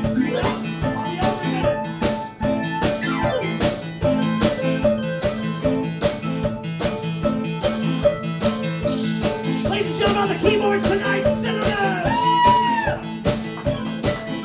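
Live band playing an instrumental passage: a drum kit keeping a steady beat under electric keyboard and guitars. Near the end a lead line bends up and down in pitch.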